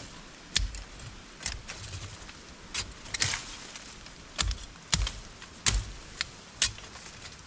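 Machete blade striking into stony ground while digging out coco (cocoyam) roots: about ten irregular sharp clinks, many with a dull thud beneath them.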